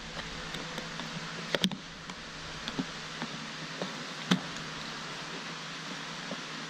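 Flathead screwdriver prying ground-down plastic welds loose on a plastic car interior trim panel, giving a few sharp clicks as the welds pop up, the loudest a little past the middle, over a steady low hiss.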